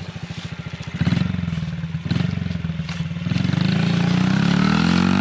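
Small dirt bike engine putting at idle with a rapid even pulse, blipped louder about a second in, then revved hard from about three seconds in, its pitch climbing steadily as the bike pulls away at full throttle.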